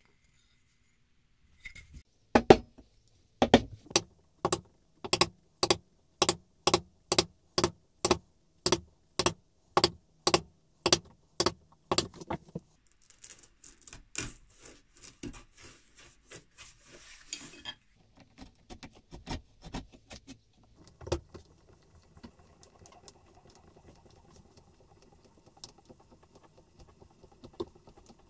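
A run of about twenty sharp, evenly spaced knocks, roughly two a second, as a beech workpiece is struck with a hand tool. Then a few seconds of scratchy scraping, and lighter scattered knocks.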